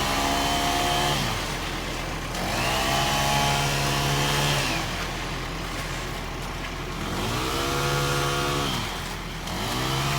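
An engine being revved up, held briefly and let back down to idle again and again, a swell every three seconds or so.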